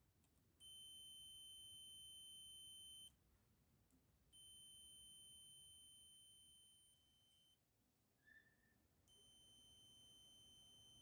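Digital multimeter's continuity beeper sounding a steady high-pitched beep three times, each lasting two to three seconds, as the test leads touch across a blade fuse: the fuse has continuity and is intact.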